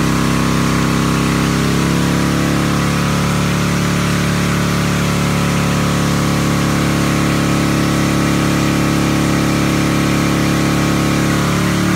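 Motorcycle engine running steadily on a dyno while a Power Commander V auto-tunes its fuel map; its pitch drops about two seconds in, holds, and rises again near the end.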